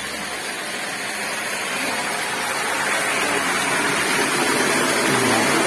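Rushing water: a steady, even rush that grows steadily louder.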